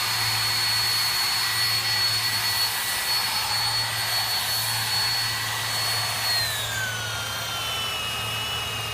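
Handheld power tool worked against the wooden canal-boat hull, running with a steady hiss and high whine whose pitch drops and settles lower about six seconds in, over a steady low hum.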